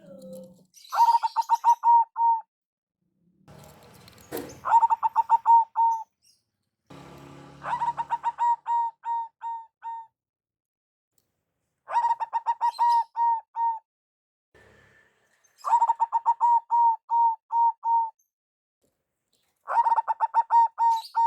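Zebra doves (perkutut) cooing in repeated bouts of quick, staccato notes, one bout every few seconds. A brief noise sounds about four seconds in.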